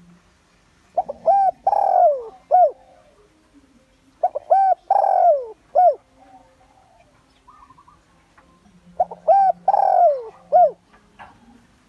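Spotted dove cooing: three phrases several seconds apart, each of a few short rising-and-falling coos with a longer note that slides down.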